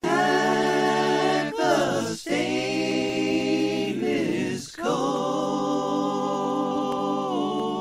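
Voices singing an a cappella intro jingle: four long held chords, the second one short, with breaks about one and a half, two and a quarter and just under five seconds in.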